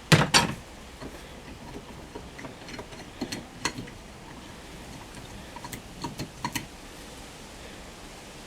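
Two loud knocks near the start, then a few scattered lighter clicks and clinks: hand tools or outboard motor parts being handled and set down.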